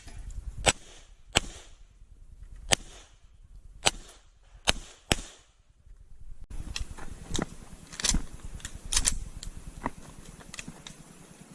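CZ 75 Tactical Sport pistol firing six shots at uneven spacing, some in quick pairs, each with a short echo. From about six and a half seconds in come fainter gunshots and knocks over a hissy background.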